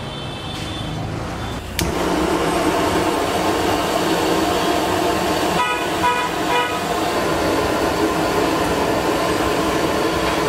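Gas burner flame running steadily under a sealed steel biryani vessel during dum cooking, a steady roar that starts abruptly with a click about two seconds in. A couple of short pitched toots sound near the middle.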